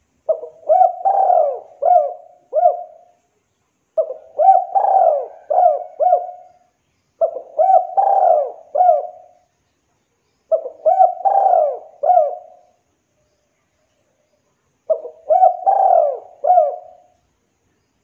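Spotted dove cooing: five phrases, each a run of several low coos lasting two to three seconds, repeated every three to four seconds.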